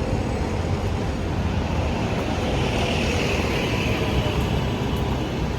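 Steady vehicle rumble, with a hiss that swells and fades about halfway through.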